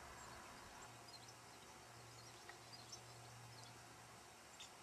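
Near silence: faint outdoor ambience with a steady low hum and scattered faint, short high chirps.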